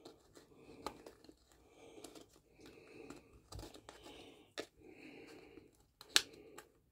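Razor knife scraping burrs from the inside edges of freshly drilled holes in a plastic chainsaw top cover, in short repeated strokes, with a few sharp clicks, the loudest near the end.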